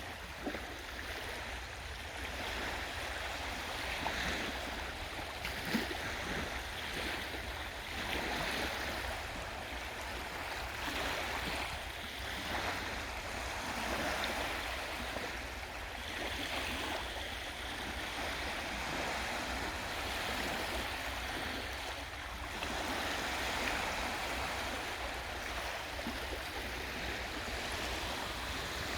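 Baltic Sea waves washing onto the shore, rising and falling in slow swells every few seconds, over a steady low rumble.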